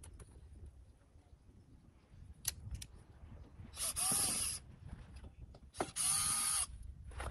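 Cordless drill-driver running in two short bursts about two seconds apart, each spinning up and winding down, as it backs out the screws holding an old cart's seat. Two sharp clicks come a little before the first burst.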